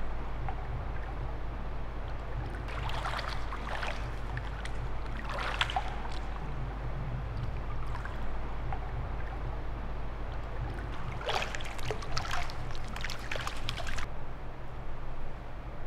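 Bare feet paddling in swimming-pool water, with three bouts of splashing and sloshing, the last and longest near the end, over a steady low hum.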